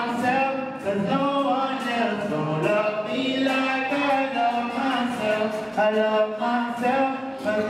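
A man singing a pop song live into a handheld microphone, accompanied by an acoustic guitar.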